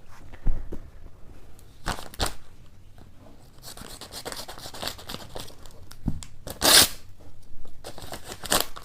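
A courier package being torn open by hand: wrapping crinkling and tearing in short, irregular rips and clicks, with one loud rip about two-thirds of the way through.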